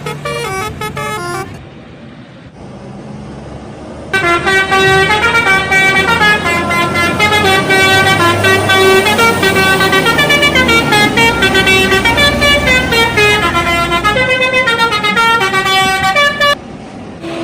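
Indonesian bus 'telolet' horn, a set of tuned air horns, playing a fast stepping multi-note tune. It plays briefly at the start, then, after a short lull with the bus engine rumbling, starts again loudly about four seconds in and keeps going nonstop for about twelve seconds over the engine's low rumble before cutting off near the end.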